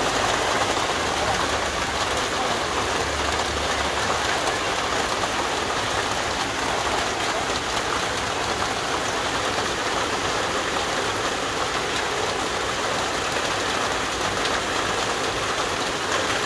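Heavy rain pouring down steadily onto open grass, an even hiss of rainfall.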